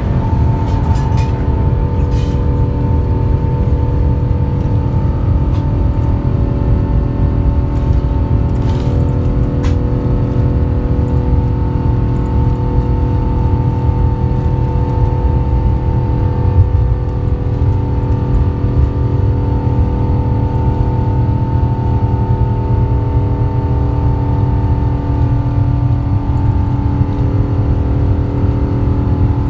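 Rolls-Royce Trent XWB turbofan engines of an Airbus A350-900 at high thrust during the takeoff roll, heard from inside the cabin. A loud, steady low rumble carries several steady engine tones on top.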